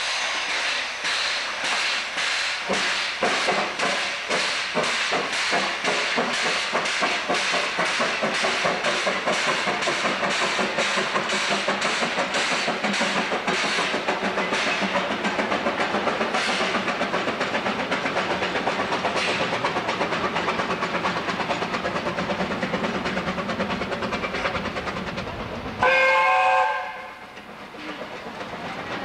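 Narrow-gauge steam locomotive working slowly, its exhaust chuffing in an even beat of about three a second, with a short whistle blast near the end.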